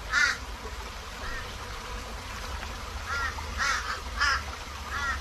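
A bird calling: about six short calls at uneven intervals, the loudest right at the start and around three to four seconds in, over a steady low rumble.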